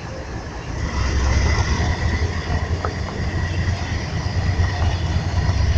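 Freight train rolling past, a heavy low rumble that swells about a second in, with a faint steady high tone over it.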